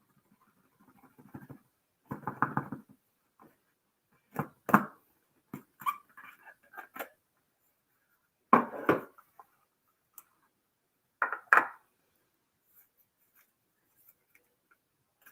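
Intermittent handling noises from unboxing gadget packaging: a handful of short rustles, knocks and clicks a few seconds apart, with quiet between them.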